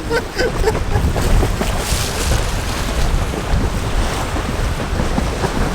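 Strong wind buffeting the microphone: a loud, rough, low rumble.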